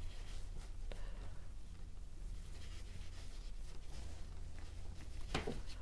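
Faint rubbing and rustling of cotton yarn drawn through stitches on a metal crochet hook as double crochet is worked, over a low steady hum, with a light click near the end.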